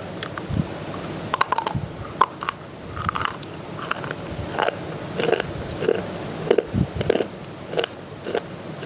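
Dry clay being bitten and chewed: a string of short, sharp crunches at an uneven pace, over a steady background hiss.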